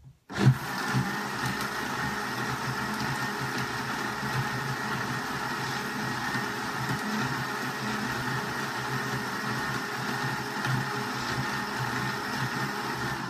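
Electric countertop blender switched on about half a second in, then running steadily as it grinds hard tiger nuts into a smooth mixture.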